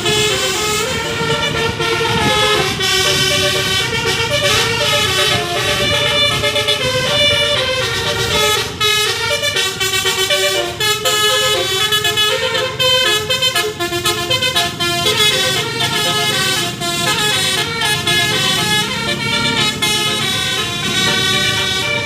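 A bus's roof-mounted basuri multi-tone air horns playing a telolet tune without a break, the notes changing several times a second.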